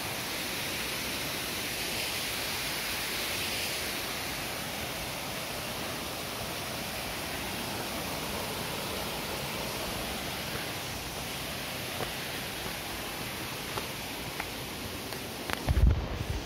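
Steady rush of a rocky stream's water spilling over small cascades. Near the end, a few loud low thumps.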